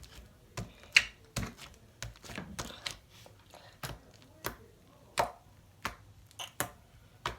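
Sticky homemade slime being kneaded and pressed by hand, giving irregular sharp clicks and pops about one or two a second; the slime is sticky from too much glue.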